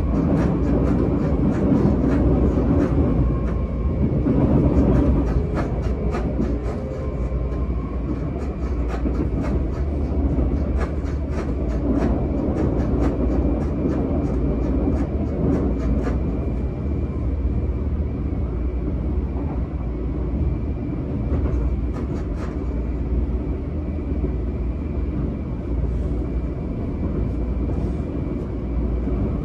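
Running noise inside a Seibu 10000 series electric train car (Hitachi IGBT inverter) travelling at speed. A steady low rumble of wheels on rail is overlaid by many sharp clicks that come in clusters.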